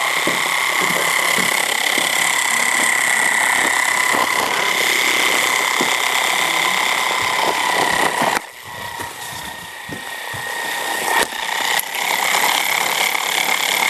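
Hexbug Bobble Bot toy running on a hard floor: its small motor gives a steady, high-pitched buzz and rattle. The buzz drops off suddenly past the middle, there are a couple of sharp clicks, and it comes back loud near the end.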